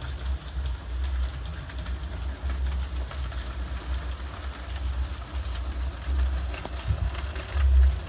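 N scale model train running on the layout's track: a low motor rumble with faint clicks from the wheels on the rails.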